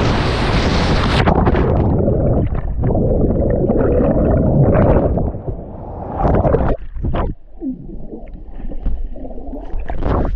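Water rushing and splashing as the camera goes into the creek. About a second in, the sound turns muffled, and gurgling and bubbling go on underwater as the swimmers move.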